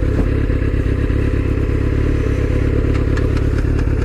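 Suzuki GSX-R600 inline-four engine running steadily at low revs as the motorcycle rolls slowly through a turn, with a few light ticks about three seconds in.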